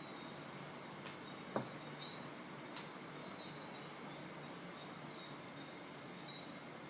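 Faint, steady, high-pitched insect trill, like crickets, with a few soft clicks in the first half.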